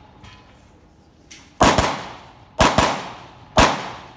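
A semi-automatic carbine fired in rapid strings: sharp shots in three quick groups about a second apart, each ringing out across the range.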